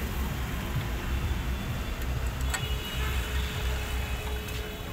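A 10 mm T-handle wrench turning a clutch pressure-plate bolt tight, with a few faint metallic clicks, over a steady low background rumble like traffic or a nearby engine.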